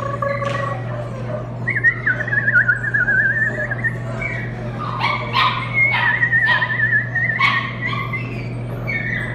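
A puppy whining in long, wavering high-pitched cries, broken by a run of short, sharp yips around the middle.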